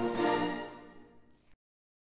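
Concert wind band's last chord ringing and dying away, then the sound cuts off abruptly about one and a half seconds in.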